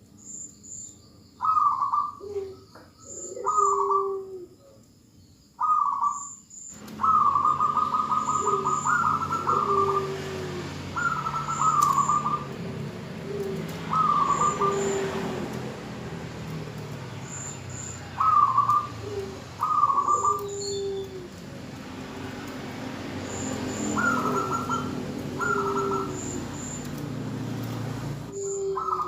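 Zebra dove (perkutut) calling in short repeated coos every second or two, quick trilled notes alternating with lower falling notes. It is presented as a female's call, used to lure males into singing. A steady background hiss and low hum come in about seven seconds in.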